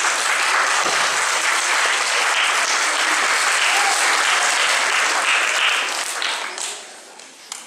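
Audience applauding, a steady dense clapping that dies away about six seconds in, with a single late clap near the end.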